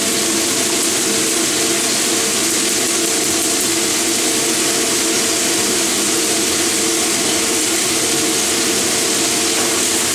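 Chicken pieces sizzling in a frying pan over a gas flame: a steady, unbroken hiss, with a steady hum running underneath.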